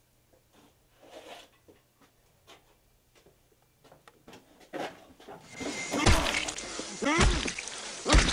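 A few faint clicks and scuffs, then a louder noisy stretch with three heavy thuds about a second apart.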